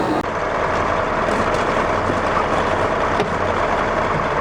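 A vehicle engine running steadily, with a brief click about three seconds in.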